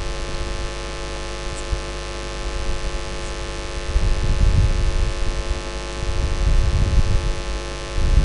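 Steady electrical mains hum and buzz from a microphone and sound-system line. Irregular low rumbles join in from about four seconds in.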